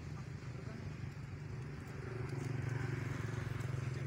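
A low, steady motor hum that grows louder about two seconds in.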